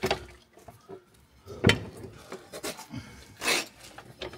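Metal clanks and knocks of tools and suspension parts being handled, a few separate strikes with the loudest about one and a half seconds in, and a brief noisier burst near the end.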